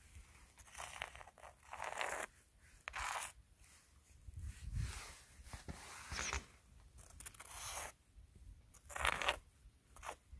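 Footsteps crunching in snow at a slow walking pace, about seven steps a second or so apart.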